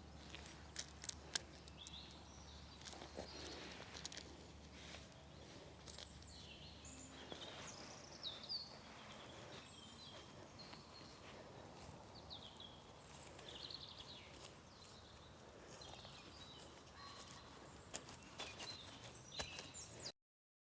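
Faint outdoor birdsong, many small birds chirping and warbling, with scattered sharp clicks and taps. The sound cuts off suddenly near the end.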